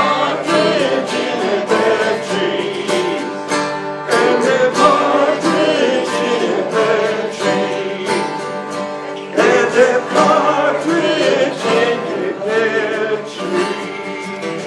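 Two acoustic guitars strummed together with a man singing along.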